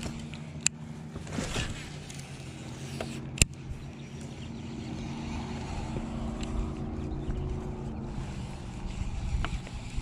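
Boat motor running steadily, with two sharp clicks, one near the start and one about three and a half seconds in.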